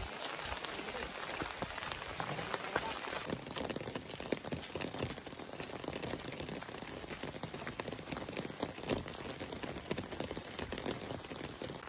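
Rain falling on umbrellas: a steady hiss dense with small, sharp drop hits.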